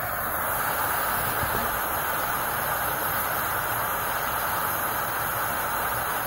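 Gas burners of a small melting furnace running at full fire: a steady, even rushing hiss as the crucible of silver ore and flux heats toward a pour.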